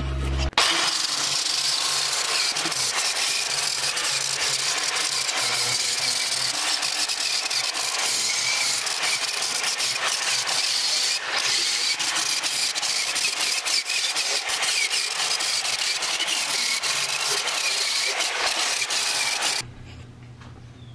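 Angle grinder grinding down the rough back side of a plasma-cut 16-gauge steel sign: a steady, harsh grinding that starts about half a second in and cuts off sharply near the end.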